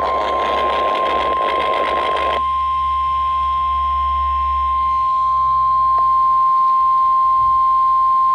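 NOAA Weather Radio warning alarm tone: a single steady 1050 Hz tone, the signal that a warning is about to be read. Radio static hisses under it for the first couple of seconds, and there is a faint click about six seconds in.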